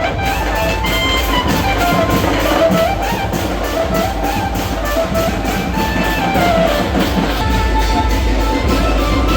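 Loud music with a steady beat and a melody over heavy bass.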